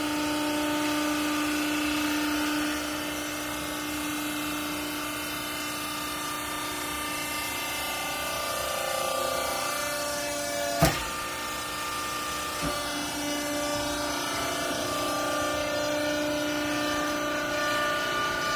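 Hydraulic vertical clothing baler running: the motor and pump give a steady whine whose pitch shifts as the press works. A sharp metallic clank comes about eleven seconds in, with a lighter knock shortly after.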